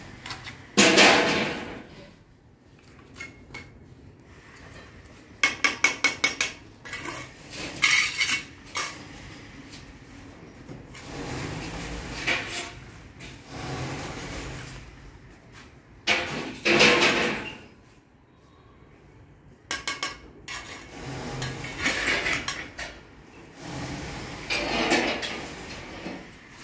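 Bricklaying: a trowel scraping and scooping mortar, and bricks set down and tapped into place, in separate bursts of clatter and scrape. A quick run of taps comes about five to six seconds in, and the loudest scrapes about a second in and again around sixteen to seventeen seconds.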